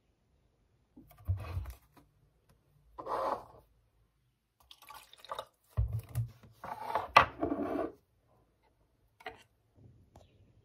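Objects picked up and set down on a wooden desk with dull knocks, then a plastic water bottle handled and water splashing into a cup for a second or two.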